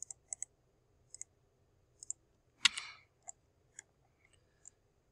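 Computer mouse clicking, about eight clicks with several heard as quick press-and-release pairs, from lines being selected and trimmed in a CAD program. About two and a half seconds in there is one louder, longer knock.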